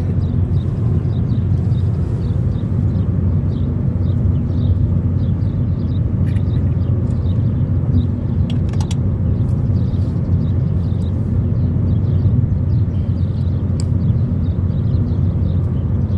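Car travelling at steady speed: a constant low rumble of road and engine noise.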